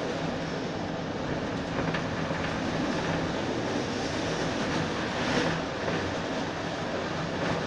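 A train running at speed, heard from aboard: a steady rumble of wheels on the track, with a few faint clicks about two seconds in and again past five seconds.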